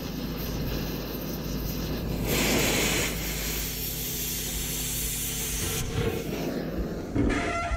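Oxy-fuel cutting torch hissing steadily as it cuts through the rusted steel of a trailer frame, with a louder rush of gas about two seconds in.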